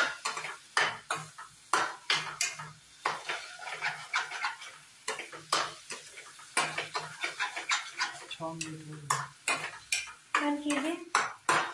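Metal spatula scraping and knocking against a stainless steel kadhai in quick, irregular strokes, stirring thick semolina halwa as sugar is mixed in.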